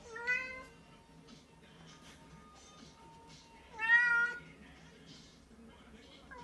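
Cat meowing twice: a short meow right at the start and a louder one about four seconds in.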